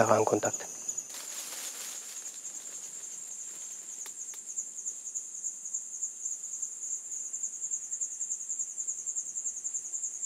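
High-pitched chorus of rainforest insects, a steady, rapidly pulsing cricket-like trill.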